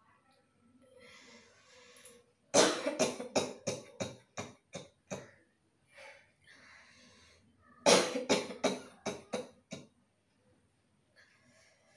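A person coughing deliberately, as a challenge, in two rapid bouts of about seven coughs each, the first about two and a half seconds in and the second near eight seconds. Breaths are drawn between the bouts.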